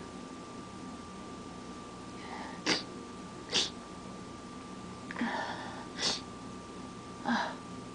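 A person sneezing from allergies: three sharp sneezes, two close together and a third a couple of seconds later, each set up by a sharp in-breath.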